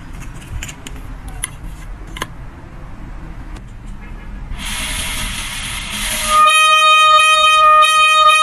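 A golden retriever blowing a plastic toy fan horn: a breathy rush of air a little past halfway, then a loud, steady horn note held for about three seconds near the end.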